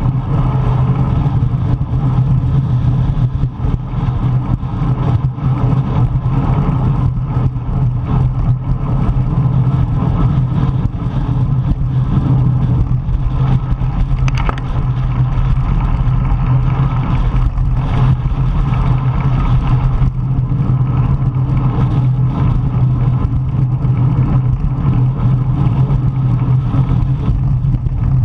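Strong wind buffeting the microphone of a camera on a racing bicycle: a steady, loud rumble with a constant low hum underneath.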